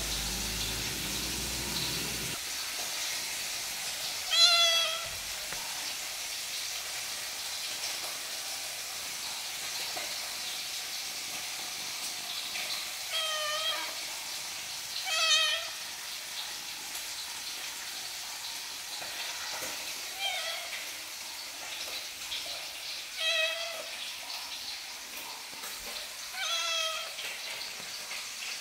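Young ginger tabby kitten meowing, about six short, high-pitched meows a few seconds apart, over a steady background hiss.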